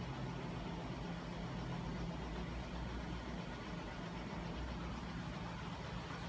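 Home-built crankshaft-and-flywheel magnet machine running steadily under its 12 V electric drive motor, giving an even low mechanical hum with no change in speed.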